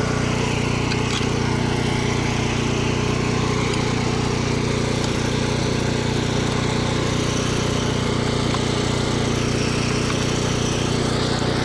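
Small petrol generator engine running steadily at constant speed, a continuous even drone that powers the pipe-welding equipment.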